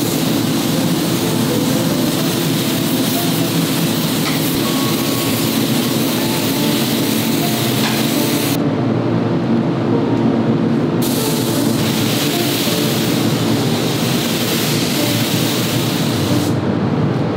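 Air spray gun hissing as finish is sprayed onto plywood panels, cutting off for a couple of seconds about halfway through and again near the end, over a steady low drone.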